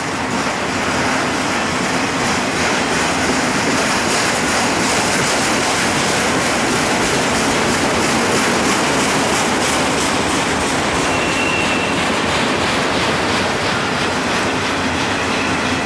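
Freight train of autorack cars rolling past close by: steady rumble and rattle of the cars with the clickety-clack of wheels over rail joints.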